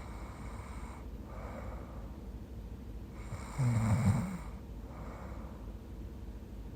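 A young woman snoring in her sleep: soft breaths, then one louder, low, rattling snore about halfway through, lasting under a second.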